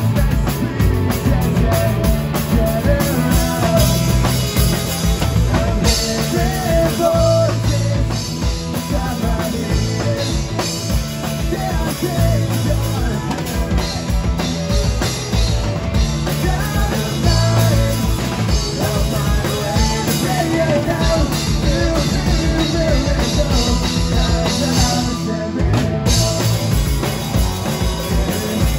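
Rock band playing live: drum kit and electric guitars.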